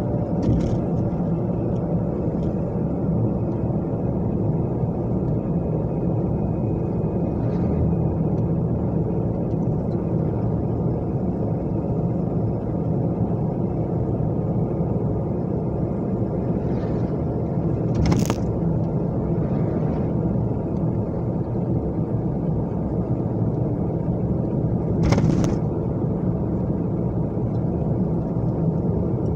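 Steady road and engine noise heard inside a car driving at speed, with two short sharp knocks about seven seconds apart in the second half.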